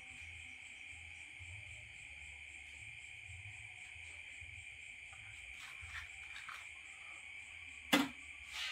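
Crickets trilling steadily, with a low hum coming and going underneath. A single sharp click near the end.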